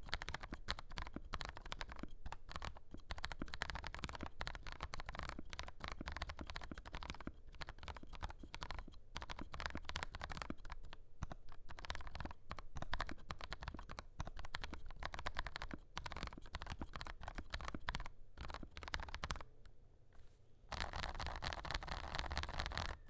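Typing on a Keebox M0110 mechanical keyboard with lubed Kailh Turbo Brown tactile switches: a fast, irregular stream of keystroke clacks. It falls to a brief lull near the end, then comes back denser.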